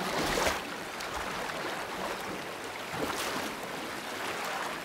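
Shallow river rushing over stones. A brown bear splashes hard through the water as it lunges for salmon at the very start, and there is another splash about three seconds in.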